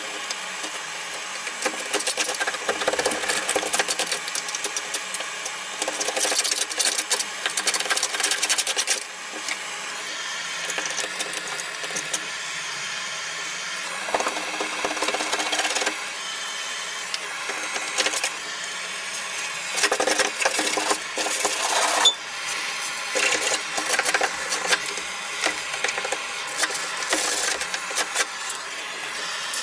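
Hand scraper rasping along a car's underside, stripping softened underseal in irregular runs of short strokes, over the steady hiss of a gas blowtorch heating the underseal.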